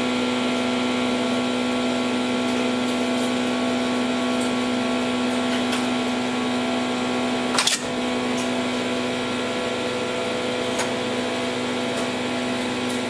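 Steady electrical hum in an interlocking machine room, with a few faint clicks. About seven and a half seconds in there is a single sharp clunk as lever 58 of the London Underground interlocking machine is thrown.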